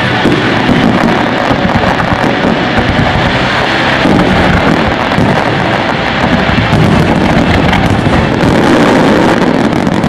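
Aerial fireworks in a finale barrage: shell bursts and crackling follow so closely that they merge into one loud, unbroken rumble.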